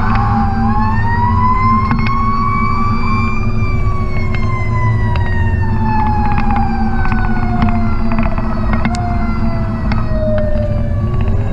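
Fire truck siren heard from inside the cab. It rises in pitch for about three seconds, then slowly winds down, and starts rising again near the end. Underneath runs the steady drone of the truck's Caterpillar C12 diesel engine, with scattered clicks.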